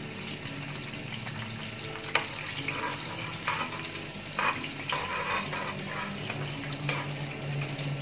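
Cumin seeds sizzling in hot oil in a metal karahi, the first step of tempering before browning. A metal spoon stirs and scrapes the pan now and then with a few sharp clinks, over a low steady hum that gets louder near the end.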